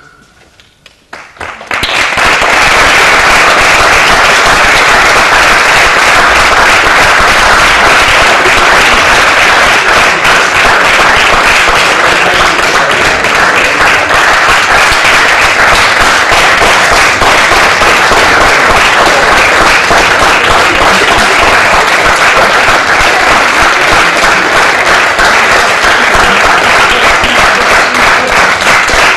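Audience applauding, a dense, steady clapping that starts about two seconds in and keeps up at full strength.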